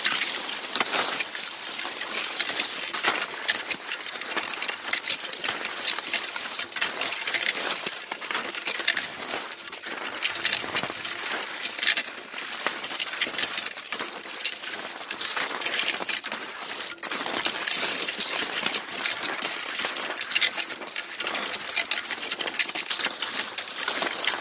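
Cross-country skis scraping and swishing over a packed, groomed snow trail, with a steady run of small irregular scuffs and clicks from skis and poles.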